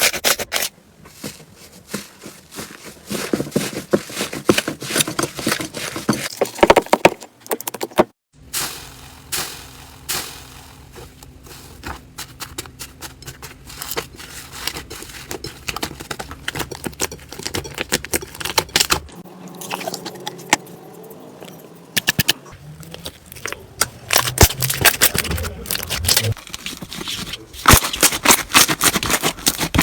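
Slime being pressed and squished by hand, giving a dense run of crackling, popping clicks. The sound changes abruptly twice, about 8 and 19 seconds in, as one slime gives way to another.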